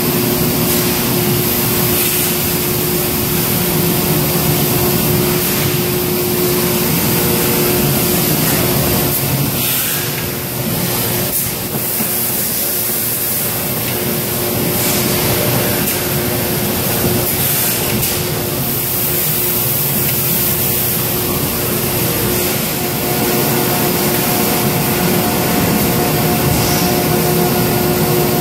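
Steady machinery noise of a blow-molding production line: a constant hum under a wash of hiss, with brief bursts of hissing now and then.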